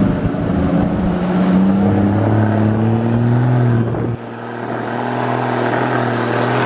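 Motorcycle engine running under way, its note climbing steadily for about four seconds. The low rumble then drops away suddenly and the engine runs on evenly.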